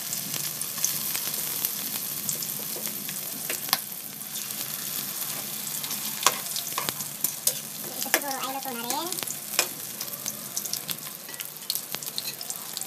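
Hot oil sizzling steadily around freshly added raw vegetable lumpia deep-frying in a metal wok, with scattered sharp pops and clicks of a metal spatula against the wok, the loudest about six seconds in. A short wavering tone sounds about eight seconds in.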